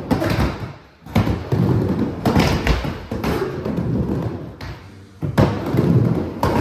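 Skateboard rolling on a mini ramp: the wheels rumble steadily, broken by several sharp thuds and clacks as the board hits the ramp.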